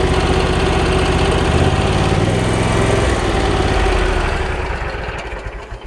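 Lawn mower engine running, its pitch shifting a little partway through, then shutting off and spinning down to a stop over the last couple of seconds.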